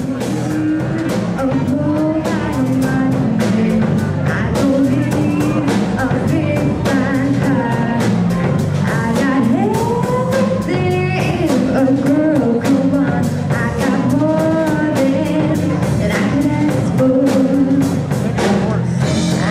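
Live soul band playing: a woman singing lead over drum kit and guitar.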